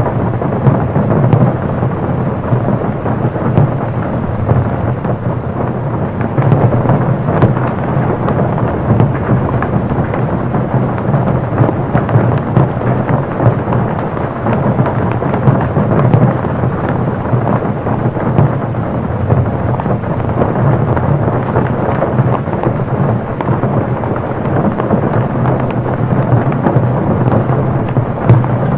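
Torrential rain pelting a car's roof and body: a dense, steady patter of countless drops over a low drumming that does not let up.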